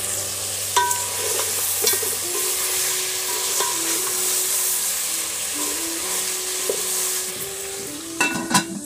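Pieces of pork sizzling as they fry in a pot over a wood fire, stirred with a wooden spatula with light scraping clicks. Just after eight seconds a metal lid clatters onto the pot and the sizzle falls away.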